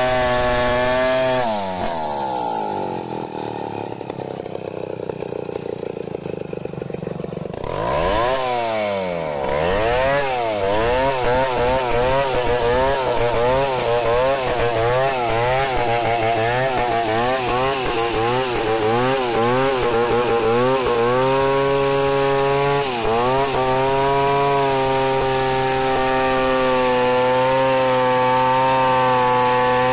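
Stihl 070 two-stroke chainsaw ripping lengthwise through acacia mangium at high revs. Its pitch falls and it runs quieter for several seconds. Around eight seconds in it revs back up, wavering up and down as it works through the cut, then holds steady with a brief dip a little past twenty seconds.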